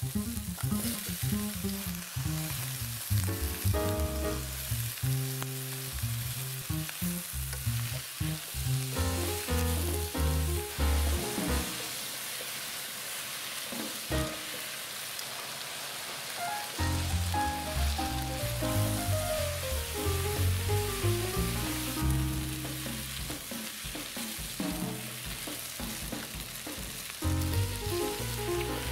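Chicken pieces, butter and cut vegetables sizzling in a frying pan as they are stir-fried, with light background music over most of it.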